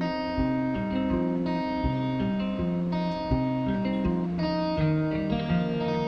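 Background music led by plucked guitar, notes changing about every half second over a low, regular beat.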